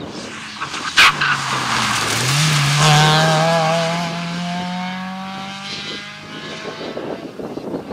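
Rally car passing at speed on a gravel stage and accelerating away, its engine climbing in pitch through a gear change and then rising steadily, with gravel crunching and spraying under the tyres. A sharp bang about a second in is the loudest moment.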